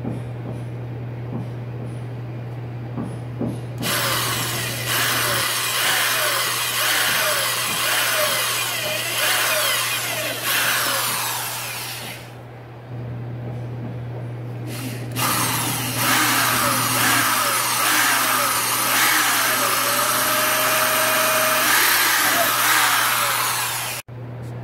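Handheld power drill boring small pilot holes through an MDF drawer front. It runs in two long spells of several seconds each, with a short pause between, its pitch shifting as the bit works through the board.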